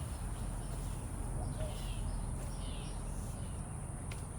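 Garden ambience: a steady high insect drone with a few short chirps from birds, over a low rumble.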